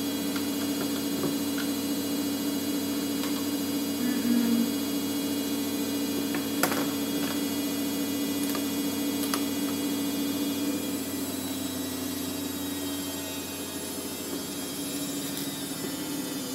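Steady low electrical hum, with a few small clicks and taps as plastic ring-light and tripod parts are handled and fitted together.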